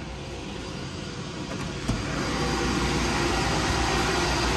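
Steady whooshing roar of the many cooling fans on GPU cryptocurrency mining rigs running, growing louder about two seconds in as the door to the room opens, with a short click or two from the door.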